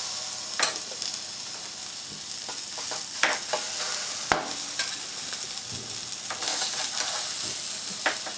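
Burger patties sizzling in hot oil in a frying pan as they are laid in one by one with a spatula. A few sharp clicks of the spatula against the pan sound over the steady sizzle.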